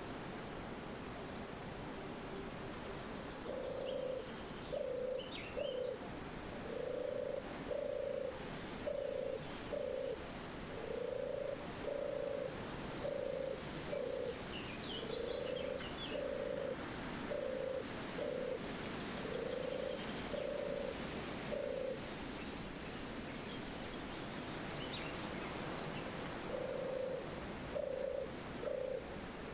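Steady forest wind, with an animal repeating a low, even-pitched call in short notes, two or three at a time, through most of the stretch. The calls pause for a few seconds about three-quarters of the way through. Faint, high bird chirps come now and then.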